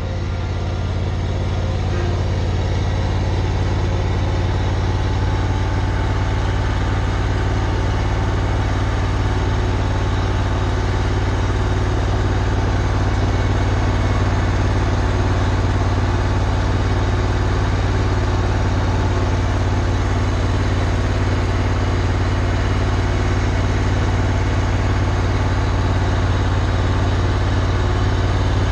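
Steady, unchanging low drone of a running motor.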